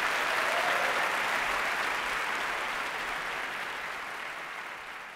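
Theatre audience applauding at the end of a talk, a dense clapping that slowly fades.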